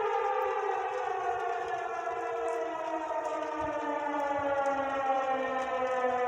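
Outdoor civil-defense tornado warning sirens sounding during a tornado warning, a steady wail whose pitch falls slowly.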